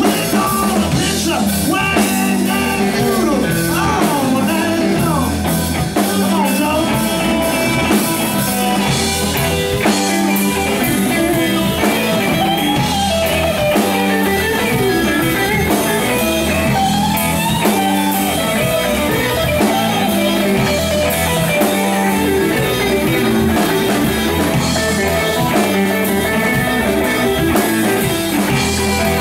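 Live blues-rock band playing: electric guitars with bending, wavering notes over a drum kit.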